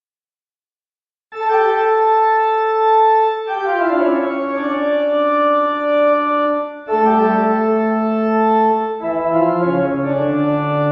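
Organ music: after about a second of silence, slow sustained organ chords that change every few seconds, with a low bass note coming in near the end.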